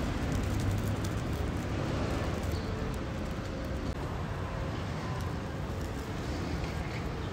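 Steady street noise with a low traffic rumble and a few faint clicks.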